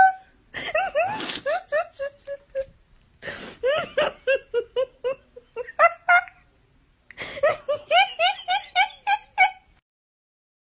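A person's high-pitched giggling laughter in three bouts of quick repeated syllables, with short pauses between them, stopping about a second before the end.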